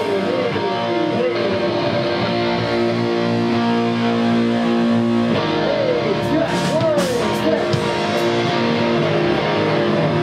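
Electric guitars played through amplifiers, holding notes while one guitar repeatedly bends notes up and lets them fall back down.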